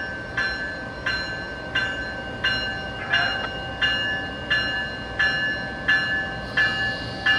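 Amtrak ACS-64 electric locomotive's bell ringing steadily, about three strikes every two seconds, over a steady hum from the standing train.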